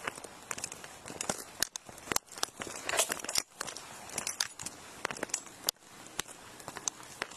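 Footsteps and uniform rustle picked up by a police body-worn camera as the officer walks on concrete: irregular clicks, scuffs and crinkling rubbing against the microphone.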